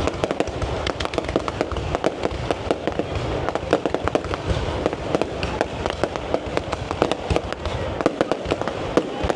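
Fireworks going off in a dense, unbroken stream of sharp cracks and pops, many a second, over a continuous low rumble.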